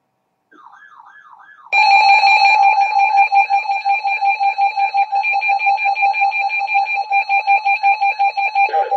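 Emergency Alert System attention signal: a loud, steady electronic alert tone with a fast flutter and a repeating falling warble beneath it. A quieter falling warble leads in about half a second in, and the loud tone starts about two seconds in and cuts off just before the end.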